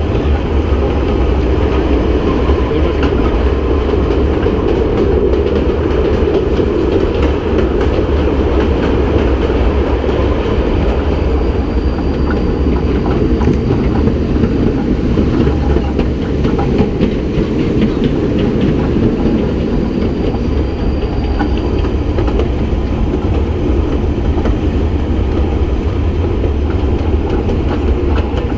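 Kurobe Gorge Railway narrow-gauge train running, heard from an open-sided carriage: a steady rumble of wheels on rails with light clicking of rail joints. A faint high whine comes in briefly twice.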